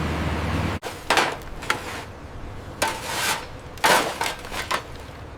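A steady machine-like hum cuts off abruptly under a second in. It is followed by a string of sharp knocks and clanks, like hammer blows on building materials, spaced irregularly about a second apart.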